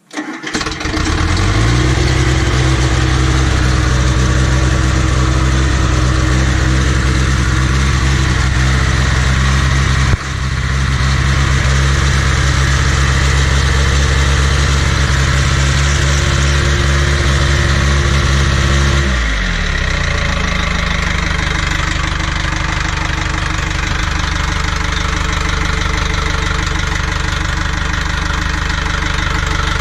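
Caterpillar 931 track loader's diesel engine starting after glow-plug preheat, catching within a second and running steadily at a raised speed. About 19 seconds in the engine speed drops and it settles to a lower idle. This is its first run on a newly fitted water pump and fan belt.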